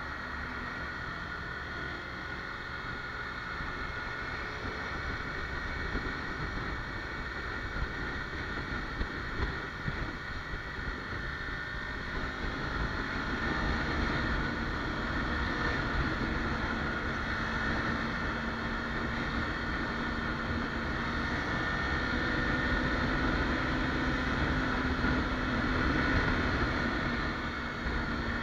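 Kawasaki Ninja 300's parallel-twin engine running with a steady rush of riding wind as the motorcycle cruises in traffic. It gets louder about halfway through as the bike speeds up.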